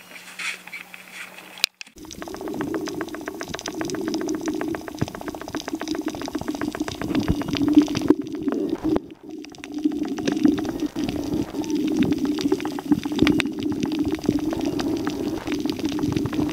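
Water heard underwater: a steady bubbling, crackling noise thick with fine clicks, starting suddenly about two seconds in as the camera goes under the surface.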